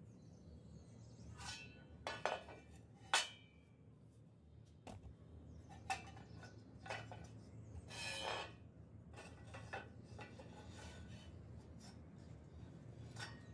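Wooden handle being fitted into the eye of a steel grub hoe head, with a few sharp knocks and clinks of wood and metal, the loudest about three seconds in, and a scraping rub about eight seconds in.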